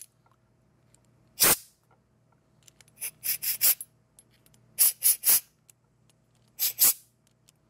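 Short blasts of compressed air from a blow gun's brass nozzle pressed into the passages of a small-engine carburetor body, hissing in quick groups: one puff, then about four, three and two. The air is blowing carb cleaner and debris out of the jets and passages to clear them.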